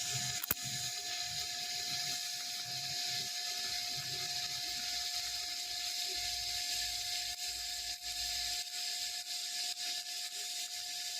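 Lift-TIG welding arc from a Predator 5-in-1 inverter welder on 0.9 mm sheet: a steady hiss, with a sharp click about half a second in and a faint steady whine underneath.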